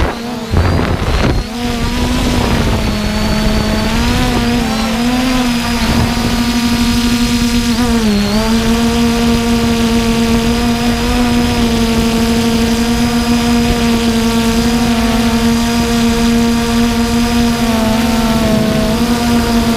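Quadcopter drone's electric motors and propellers running with a steady pitched hum, picked up by its onboard camera. The pitch wavers a little and dips briefly about eight seconds in, and the first second or so is rougher and broken.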